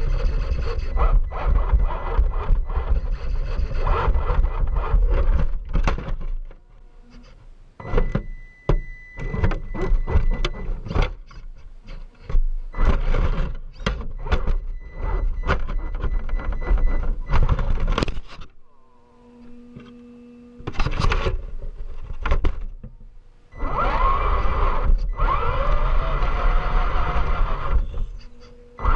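On-board sound of an Axial SCX10 II RC crawler climbing over rubble: its electric motor and gears whine up and down with the throttle, while the chassis and tyres knock and scrape against the rocks. The driving drops off briefly twice.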